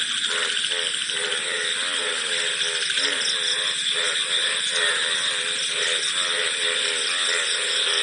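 Night chorus of crickets and frogs: a steady high chirring of insects with frog calls repeating throughout lower down.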